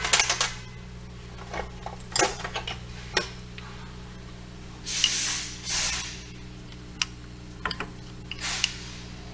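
Metal hand tools clinking and tapping against a rear brake caliper as a seized parking-brake cable retaining clip is pried and knocked loose: irregular sharp clicks, the loudest cluster right at the start, with a few short hissy bursts in the middle and near the end over a steady low shop hum.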